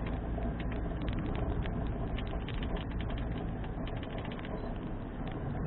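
Inside a moving car: steady low rumble of road and engine noise, with many small irregular rattling clicks.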